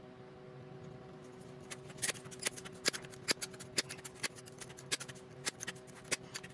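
A run of about ten sharp clicks, roughly two a second with the spacing slowly widening, starting about two seconds in: the Crosman Drifter .22 multi-pump pellet rifle being pumped up before the first shot.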